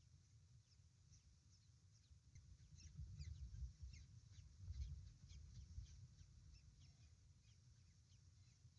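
Faint, thin peeping from newly hatched kestrel chicks under the brooding adult: many short, falling high chirps, a few a second. Under it is a low rumble that swells about three seconds in and again near five seconds.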